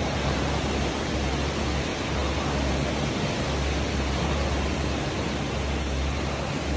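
Air rowing machine's fan flywheel spinning hard under steady strokes: a continuous whooshing hiss with a low rumble that swells and fades with each stroke.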